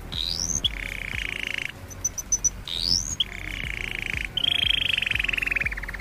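Canary singing: quick rising whistled glides, each followed by a fast rolling trill. A long trill in the second half drops slightly in pitch and slows into separate notes near the end.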